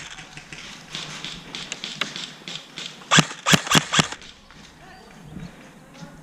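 Airsoft gun firing four quick single shots about three seconds in, a sharp crack each, roughly a quarter second apart, with fainter ticks and clatter before them.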